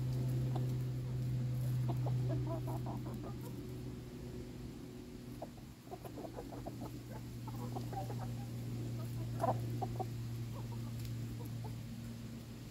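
Chickens clucking in a few short runs over a steady low hum, which is the loudest sound.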